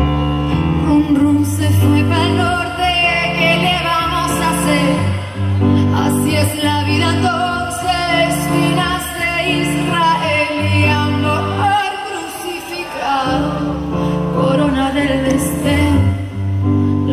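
Live pop music: a woman singing lead over band accompaniment, with held bass notes that change about once a second and drop out briefly a little past the middle.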